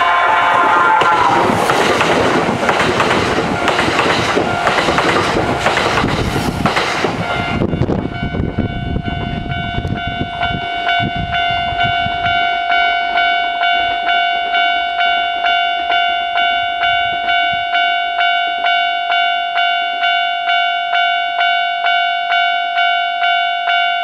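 Kintetsu Shimakaze limited express passing close by at speed, its wheels clattering over the rail joints for about eight seconds before the noise drops away. Throughout, the level-crossing warning bell rings in a steady, evenly repeating pattern, heard alone once the train has gone.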